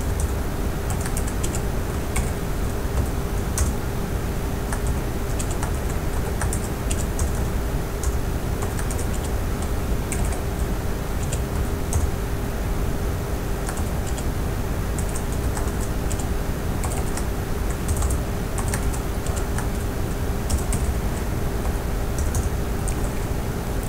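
Typing on a computer keyboard: irregular key clicks over a steady hum.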